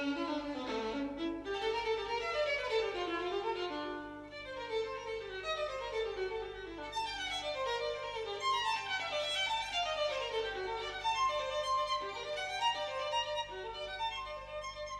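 Violin music, with fast runs of notes climbing and falling throughout, over a steady low hum.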